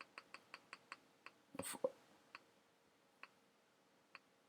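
Computer mouse clicking faintly: a quick run of about five clicks a second, then a few single clicks spaced out. A brief louder noise comes about a second and a half in.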